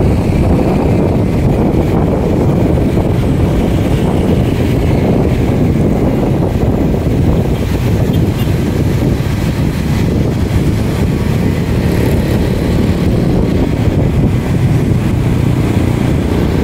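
Steady wind noise on the microphone of a moving motorcycle, with the motorcycle's engine and road noise running underneath.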